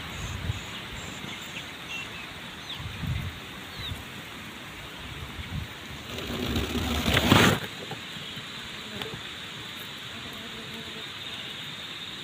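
Dry grass and brush rustling with low bumps from handling, swelling into a louder rustle for about a second and a half past the middle that cuts off suddenly. A few faint high chirps sound near the start.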